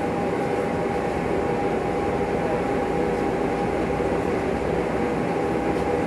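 Steady hum and hiss of a tram standing still with its on-board equipment running, a steady high tone running through it.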